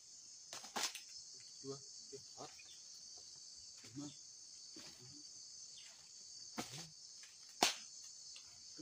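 Steady high-pitched buzzing of an insect chorus, with two sharp knocks: one about a second in and a louder one near the end.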